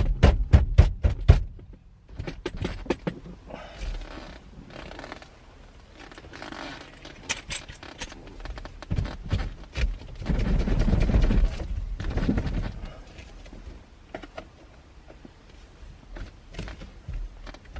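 Rapid clicking and knocking at the start, then intermittent scraping, rattling and thunks of metal parts and tools being handled while a car's steering wheel is worked off or onto its hub.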